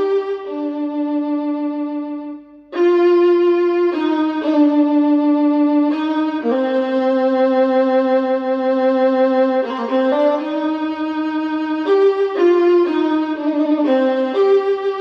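Violin music played back through a KEF iQ1 bookshelf speaker: sustained bowed notes, often two pitches at once. The music fades briefly about two and a half seconds in, then comes back louder.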